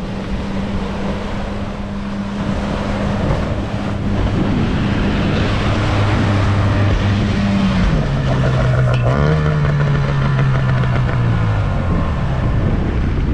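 Outboard motor of a small fibreglass fishing boat running steadily as the boat comes in through the surf and is driven straight up onto the beach under power; its note drops about eight seconds in. Breaking waves underneath.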